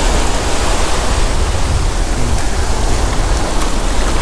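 Shallow surf washing up over coarse wet sand and draining back: a steady rushing hiss with a low rumble underneath.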